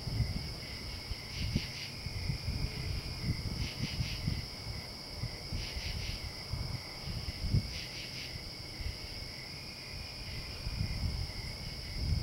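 Night insects chirping in a steady high chorus, with louder pulsing bursts about every two seconds, over an uneven low rumble of wind on the microphone.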